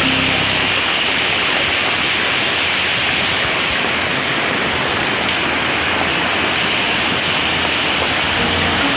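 Heavy rain falling steadily: a dense, even hiss of a downpour on surfaces.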